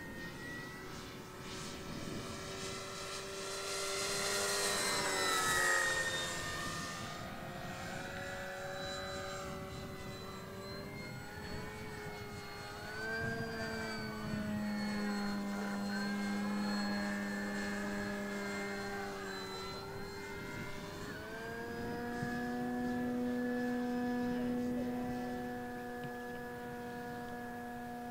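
Electric motor and propeller of a Flex Innovations RV8 radio-controlled model plane whining in flight. The pitch rises and falls as the plane passes and the throttle changes. There is a louder rushing pass about five seconds in, and the whine steps up in pitch about halfway through and again near the end.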